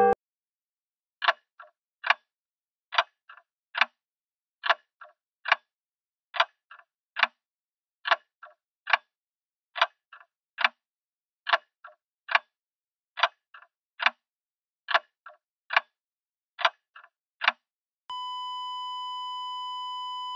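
Clock ticking as a sound effect: sharp, even ticks a little under a second apart, each with a fainter echo tick. Near the end the ticking gives way to one steady high beep held for a few seconds.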